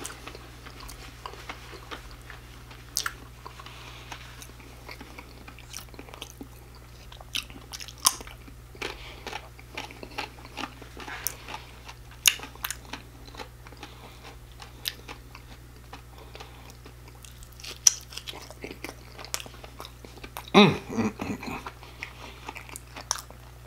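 Close-miked chewing of crispy fried food in a spicy sauce: wet mouth sounds with scattered sharp crunches and clicks. A brief voiced sound from the eater comes near the end.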